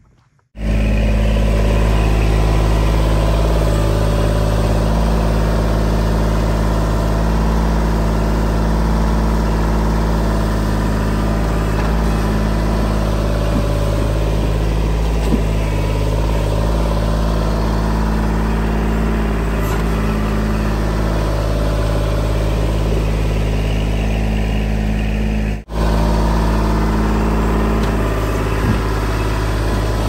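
Kubota L2501 compact tractor's three-cylinder diesel engine running steadily while the loader bucket works a pile of dirt. The sound drops out for an instant about 26 seconds in.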